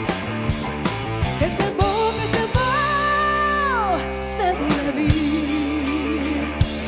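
A live pop-rock band: a woman singing in French over electric guitars, bass and a drum kit. Near the middle there is one long held note that slides down as it ends.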